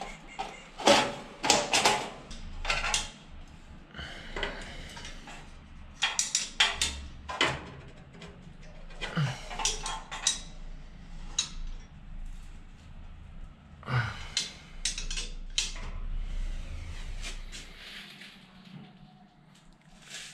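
Irregular metallic clinks and knocks from hand tools and metal parts being handled inside a steel electrical distribution cabinet. The sharp taps come in several short clusters with pauses between them.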